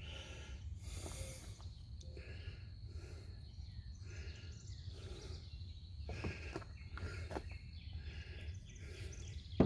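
Low, steady outdoor background rumble with a few light knocks and taps as pipe and fittings are handled for gluing. The sharpest knock comes near the end.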